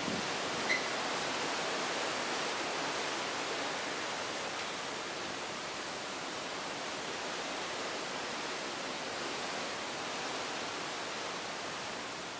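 Steady rushing of open sea and wind along the side of a cruise ship under way, an even hiss with no pauses. A short tick sounds under a second in.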